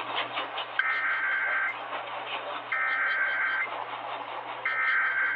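Emergency Alert System SAME header tones received over an AM radio: three bursts of high, steady two-pitch digital data tones, each about a second long and about a second apart, opening a required monthly test alert.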